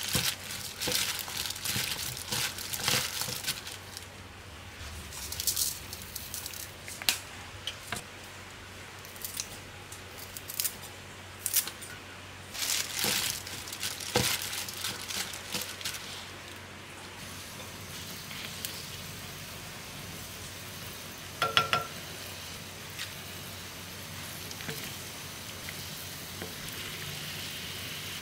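Disposable plastic gloves crinkling and wet squishing as hands toss and squeeze seasoned julienned radish in a plastic bowl, in irregular bursts through the first half. After that a soft steady hiss, with one short ringing tone about two-thirds of the way through.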